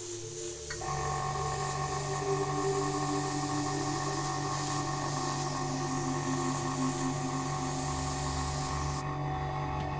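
Airbrush spraying paint: a steady high air hiss that cuts off suddenly near the end, as the trigger is released.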